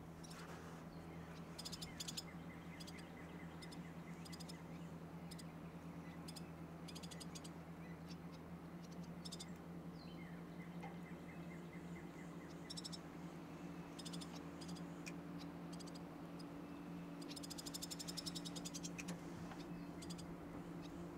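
Frogs calling at a lakeshore at dusk: short high chirps and clicks come and go, with runs of quick repeated notes and a brief dense trill near the end, over a steady low hum.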